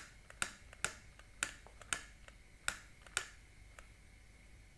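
Piezo igniter of a butane gas soldering iron clicking repeatedly, about seven sharp clicks roughly half a second apart, without the flame catching yet.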